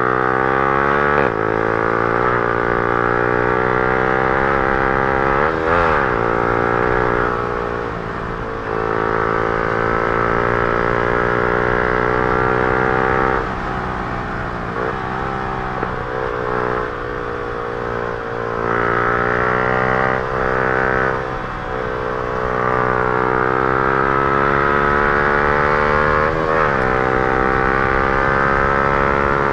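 Yamaha R15 M's single-cylinder engine running through an aftermarket Akrapovic full-system exhaust under riding load. The revs climb steadily and the note drops sharply several times, as at gear changes.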